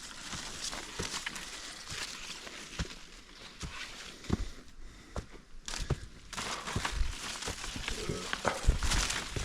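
Footsteps of a hiker climbing a steep dirt forest trail: irregular crunching steps and rustling of leaves and twigs underfoot, picked up close by a body-worn action camera.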